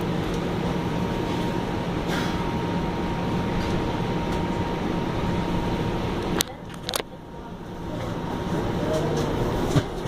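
Bombardier Flexity Outlook low-floor streetcar heard from inside the passenger saloon while under way: a steady running rumble with a thin steady whine. About two-thirds of the way through come two sharp clicks, after which the noise drops quieter for a moment and then builds again.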